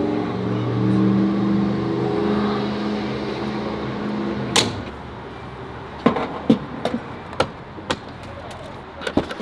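Chevrolet Corvette's V8 idling steadily, then a sharp thud about halfway through, after which the engine sound is gone. Scattered clicks and knocks follow.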